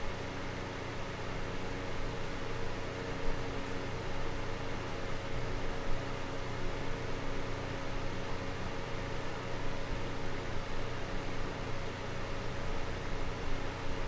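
Small desk fan running steadily: an even rush of moving air with a constant low motor hum underneath.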